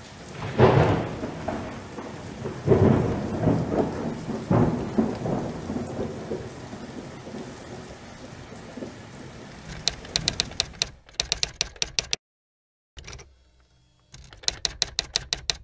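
Thunderstorm sound effect: rain with three heavy rumbling thunder claps in the first five seconds, fading away. From about ten seconds in it gives way to rapid sharp clicking, several clicks a second, cut by a brief dead gap.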